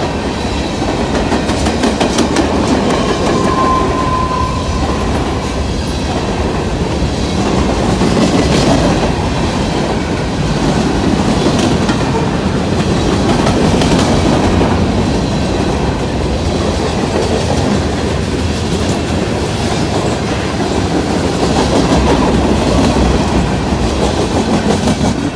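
Train rolling past, its wheels clattering over the rails in a steady run of clicks, with a brief thin high tone about three to five seconds in.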